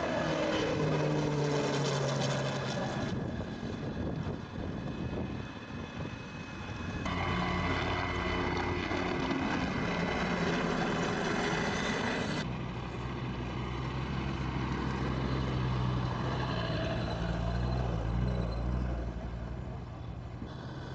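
Steady engine drone of aircraft. The sound changes abruptly at cuts about 3, 7 and 12 seconds in.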